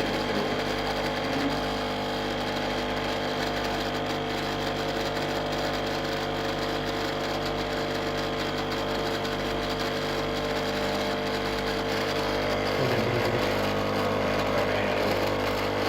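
Martello capsule coffee machine's pump running with a steady, unchanging mechanical buzz.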